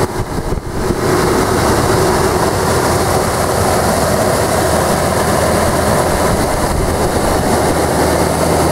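2006 Nissan Titan's 5.6-litre V8 idling steadily, heard close up with the hood open.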